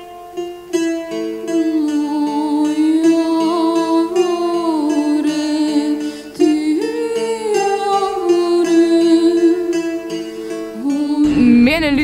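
A woman sings a slow traditional folk melody with sliding, ornamented pitch over a plucked string instrument and a steady held drone. The plucked notes open alone, and the voice comes in about two seconds in. A woman's speaking voice cuts in near the end.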